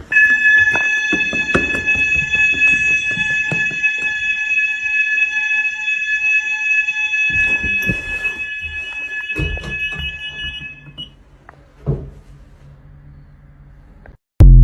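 Fire alarm sounders in a pub sounding a continuous high-pitched electronic tone during an alarm test, then falling silent about eleven seconds in. A short knock follows, and a brief, very loud low thump comes at the very end.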